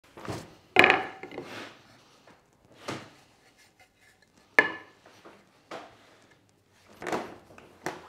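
Wooden knocks and clacks from an all-wood cam-lock leg vise being worked by hand as its lever and chop are moved. Two sharp knocks, about a second in and about halfway through, stand out among several softer ones.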